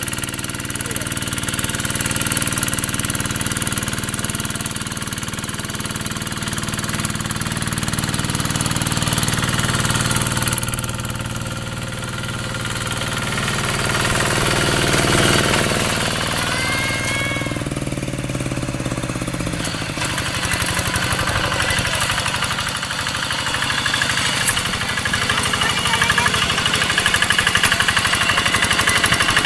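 Quick G3000 two-wheel hand tractor's single-cylinder diesel engine running steadily with a rapid, even chugging while it pulls a plough through soil on steel cage wheels. Its sound changes between about ten and twenty seconds in.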